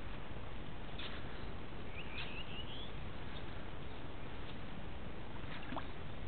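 Steady background hiss with a short chirping bird call about two seconds in, and a few faint clicks.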